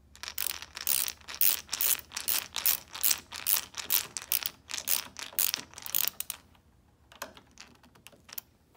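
Small hand driver turning a screw into a freshly drilled hole in a router lift, the screw cutting its own threads: a quick run of clicks that stops about six and a half seconds in, followed by a few faint clicks.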